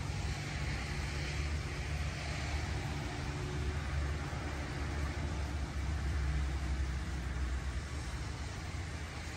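A long, low rumble of thunder over the steady hiss of rain.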